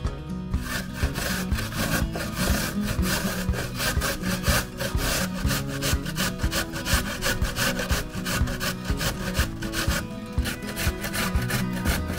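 Peeled zucchini being grated on a stainless steel box grater in quick repeated scraping strokes that start about half a second in, with a short pause about ten seconds in.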